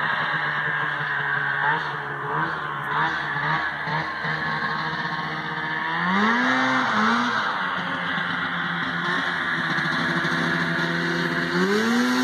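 Arctic Cat 550 / Polaris ATV engine running as the quad drives. Its note rises sharply twice as it revs up, about halfway through and again near the end.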